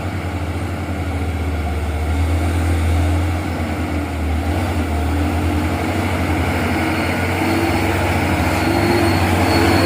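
Heavy diesel dump truck engine running close by: a deep, pulsing drone that grows louder toward the end.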